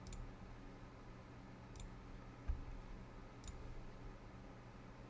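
Three isolated computer mouse clicks about a second and a half apart, with a soft low thump between the second and third, over a faint steady low hum.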